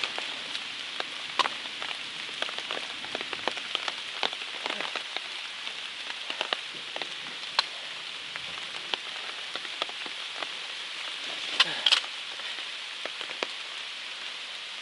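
Steady rain falling, with sharp ticks of single drops striking close to the microphone. A brief louder noise sounds about twelve seconds in.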